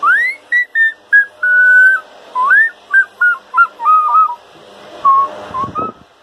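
A person whistling a tune: a rising swoop, then a run of short and held notes. A brief low rumble of handling noise comes near the end.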